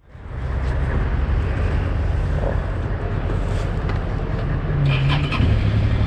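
Suzuki V-Strom DL650's 645 cc V-twin engine idling with the bike standing still, fading in at the start, with a short change in tone about five seconds in.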